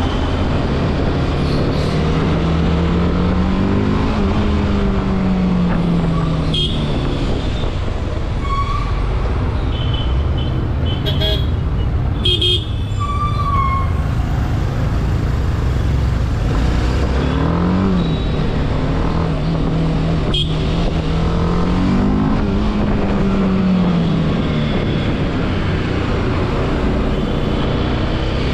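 BMW motorcycle engine running at low city speed, its pitch rising and falling twice as the throttle is opened and closed, over steady traffic noise. Other vehicles' horns toot several times around the middle.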